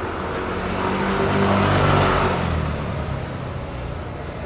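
Downtown street traffic with one vehicle passing close by, its engine and tyre noise swelling to a peak about two seconds in and then fading.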